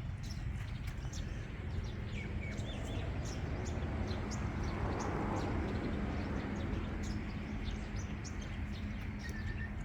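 Outdoor ambience: small birds chirping in short, scattered calls over a steady low rumble, with a broad swell of noise and a faint steady hum through the middle.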